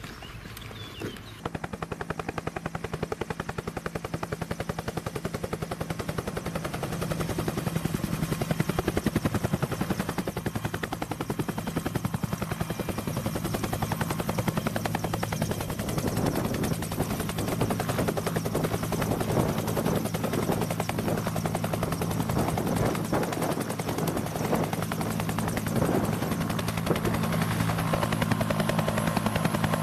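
Helicopter running, a fast, steady rotor chop over a low drone. It starts about a second and a half in and grows louder over the next several seconds, then holds.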